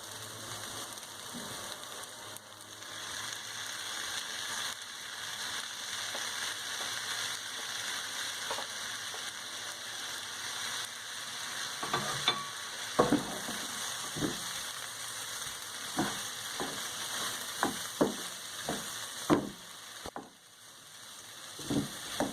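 Shrimp, calamari and chicken sizzling steadily in the pan with the rice, peas and onion. From about halfway, a spoon knocks and scrapes against the pan again and again as the mixture is stirred.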